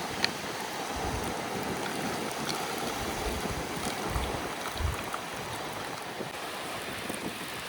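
Steady wash of sea waves, with gusts of wind buffeting the microphone a few times and a single sharp click just after the start.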